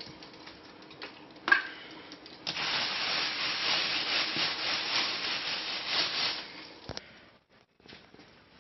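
Dry flour-and-cornstarch breading being mixed in a container, a rubbing, scraping noise lasting about four seconds. A knock comes before it and a click near the end.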